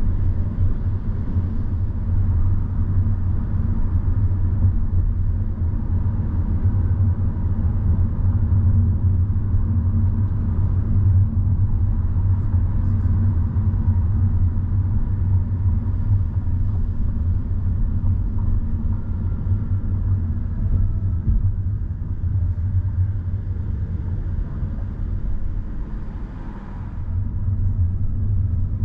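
Steady low rumble of a car driving on city streets, road and engine noise, becoming briefly quieter near the end.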